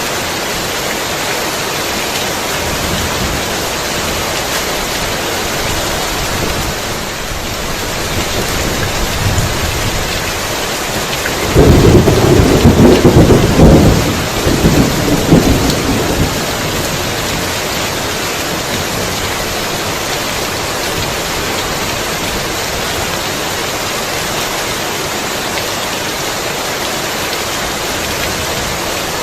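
Heavy rain falling steadily, with a thunderclap about twelve seconds in. A faint rumble builds first, then a sudden loud deep rumble lasts about four seconds and fades back into the rain.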